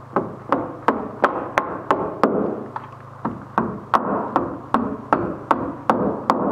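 Hammer driving nails to fix a metal joist hanger and wood floor joist in place: quick, even blows at about three a second, in two runs with a short pause about two and a half seconds in.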